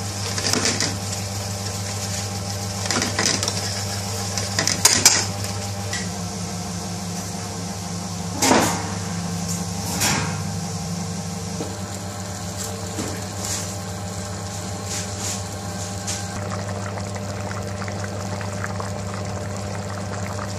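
Chicken noodle soup boiling on a gas stove over a steady low electrical hum of kitchen equipment. A few short knocks and clatters come in the first half, the loudest about eight and a half seconds in.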